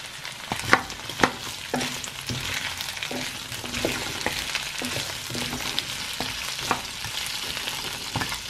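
Whole shrimp and garlic sizzling in hot oil in a nonstick wok, with a steady hiss, while a spatula stirs them, scraping and knocking against the pan; two sharp knocks come about a second in.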